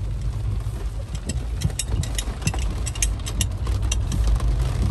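Steady low rumble of a car's cabin as it rolls slowly in the rain, with scattered light ticks of raindrops hitting the windshield.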